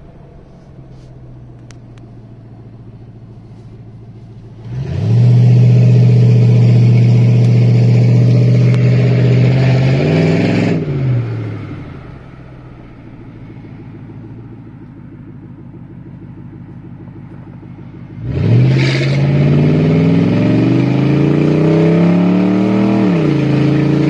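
Lexus LS400's 1UZ-FE 4.0-litre V8, with only its primary catalytic converters, heard through an open window. Quiet cruising is broken by two hard accelerations, about five seconds in and again about eighteen seconds in. Each one is loud, rising in pitch and then dropping as the gearbox shifts up.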